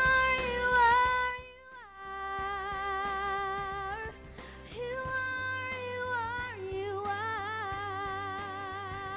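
A young girl singing into a handheld microphone: long held notes with wavering runs and glides in pitch, in several phrases with short breaths between, over a soft accompaniment.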